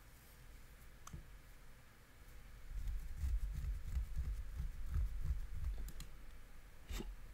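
A few scattered computer keyboard clicks, with a low rumble in the middle that is the loudest sound.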